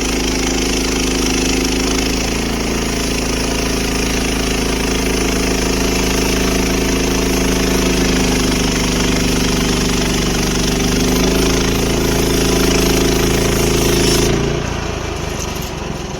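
Portable band sawmill running steadily under its small gasoline engine, the band blade cutting through a log. About fourteen seconds in, the sound changes and drops away.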